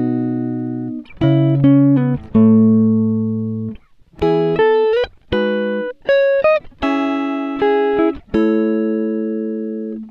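Background music: a plucked string melody, with notes struck one after another and left to ring and fade.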